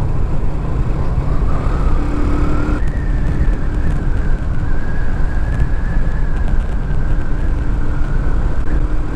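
Motorcycle engine running at a steady cruising speed, its whine holding level after stepping up in pitch about three seconds in, under heavy wind rush on the microphone from the bike's motion.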